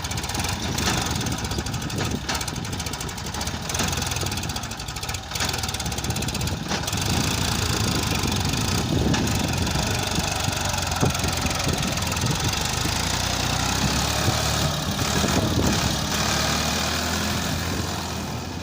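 Heavy diesel engine running steadily with a clattering note, a little louder from about seven seconds in, fading out near the end.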